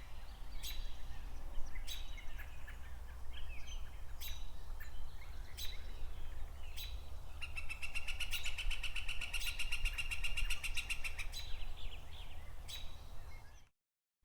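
Songbirds singing: short, sharp high notes every second or so, and a rapid trill lasting about four seconds in the middle, over a steady low rumble. The sound cuts out abruptly just before the end.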